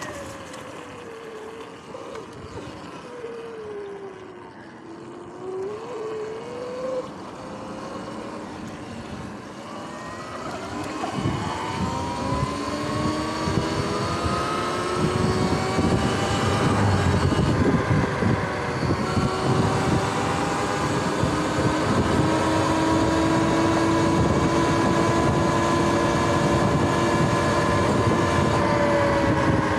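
Sur-Ron X electric dirt bike's motor and drivetrain whining as it rides. The whine falls in pitch over the first few seconds as the bike slows, rises again, then climbs sharply as it accelerates from about ten seconds in and holds steady at cruising speed, with a rushing noise of wind and tyres growing underneath.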